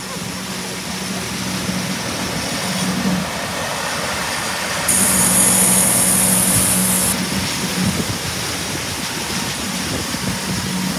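A pontoon boat's outboard motor runs steadily underway: a low, even hum under the rush of wind and water. From about five to seven seconds in, the hiss of the churning wake behind the boat grows louder.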